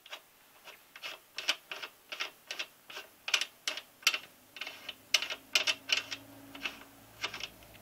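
Ratchet wrench clicking in quick, slightly uneven strokes, about three clicks a second, as the rear axle nut of an early Kawasaki Ninja 250 is spun off.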